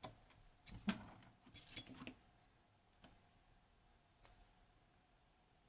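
Small metal clicks and clinks from a picked Kaba Gemini S lock and its lock picks being handled: a click at the start, two short clusters of clatter in the first two seconds, then single clicks around three and four seconds in.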